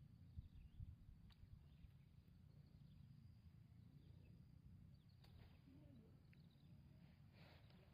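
Near silence: faint outdoor background with a low rumble and a few soft clicks.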